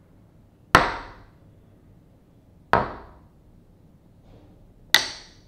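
Three recorded impact sounds of everyday objects of different materials, such as plastic and glass, about two seconds apart. Each is a sharp knock that dies away within half a second, and the last rings brightly.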